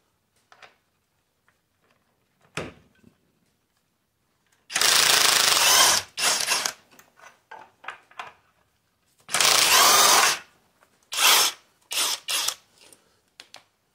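Kobalt 24V cordless impact wrench hammering on the steering-arm nuts of a Ford 8N's front axle in about five short bursts, the two longest about a second each, with small clicks of the tool and parts between.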